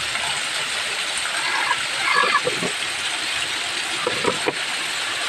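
Steady hiss of heavy rain and running water, with a few short chicken calls about a second and a half and two seconds in.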